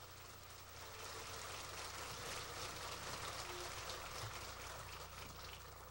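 Audience applauding, swelling about a second in and easing off near the end.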